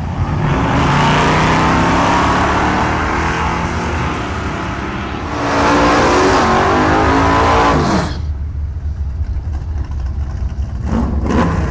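Drag cars' engines at full throttle: first an engine note rising as a car launches and pulls away, then a second car's engine held at high revs through a burnout, cut off sharply about eight seconds in. Near the end, two short throttle blips.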